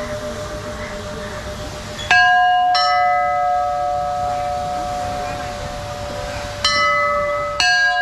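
Hindu temple bells struck four times, about two, three, six and a half and seven and a half seconds in. Each strike rings on in long sustained tones, and the strikes do not all sound at the same pitch. A murmur of people's voices runs underneath.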